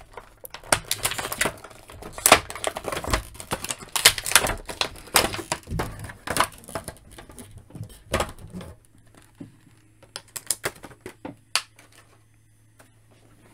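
Clear plastic blister tray crackling and clicking as an action figure is worked free of it and the tray is lifted away: a dense run of sharp crackles for most of the time, thinning to a few scattered clicks near the end.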